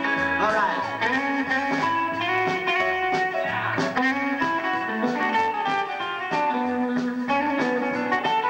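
Live rockabilly band playing an instrumental passage with no singing: electric guitar lead with bent notes over an upright bass line and drums.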